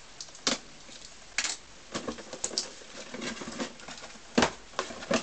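Cardboard parts box and bagged plastic kit parts being handled and lifted out: a few sharp taps and knocks, the loudest about four seconds in, with soft crinkling and rustling between.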